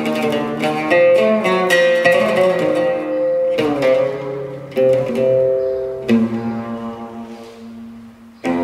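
Solo oud played live, a run of plucked notes in a slow, free-flowing phrase. Near the end a low note is left to ring and fade for about two seconds before a fresh pluck starts the next phrase.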